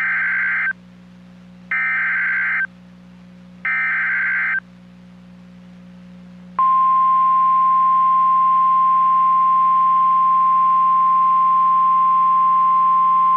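NOAA Weather Radio alert: three identical one-second bursts of SAME digital header data, a harsh electronic screech, a second apart. About six and a half seconds in, the steady single-pitch 1050 Hz warning alarm tone starts and holds. Together they mark the start of a new warning broadcast, here a flood warning.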